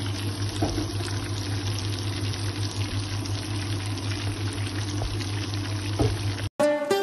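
Battered fish pieces deep-frying in hot oil in a frying pan: steady sizzling and bubbling, with a low steady hum underneath. The sound cuts off abruptly near the end and plucked-string music starts.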